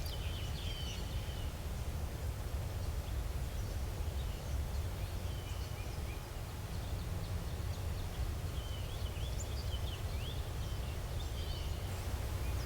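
Outdoor ambience: a steady low rumble with faint, short bird chirps scattered throughout.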